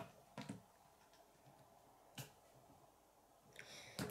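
Plastic K'nex rods and connectors clicking as they are handled and snapped together: a few sharp, separate clicks, one about half a second in, one about two seconds in, and a small cluster near the end, over near silence.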